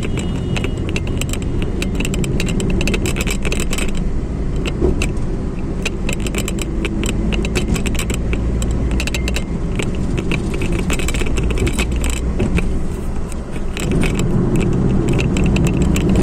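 Inside a moving car: steady engine and tyre noise on the road, with frequent light rattles and clicks. The noise dips briefly about three-quarters of the way through.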